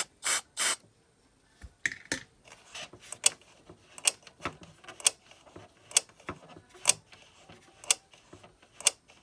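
Can of electrical contact cleaner sprayed in three short hissing bursts, followed by a run of small sharp clicks about once a second.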